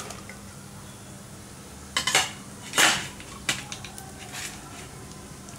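Chopped dates being tipped from a bowl into a nonstick frying pan, with a few sharp clinks and knocks of bowl and utensil against the pan; the loudest comes about three seconds in.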